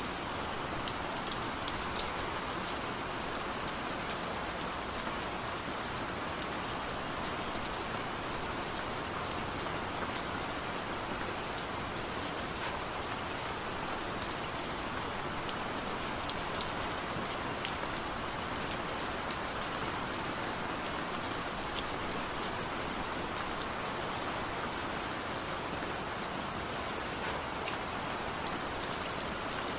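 Steady rain falling and pattering on surfaces, an even hiss with many small drip ticks scattered through it.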